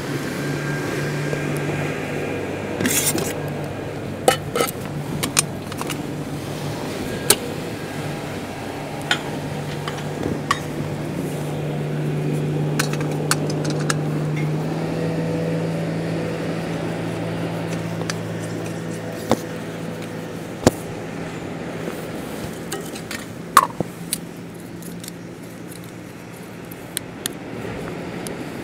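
Clicks and clinks of a camping stove kit being handled: a gas canister and stove taken out of a metal pot, the stove screwed onto the canister and its plastic legs snapped open. Under them runs a steady low engine drone.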